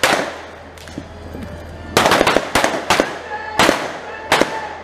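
Blank gunfire in a staged Wild West shootout: about six sharp shots with echoing decays, one at the start and a quick cluster from about two seconds in.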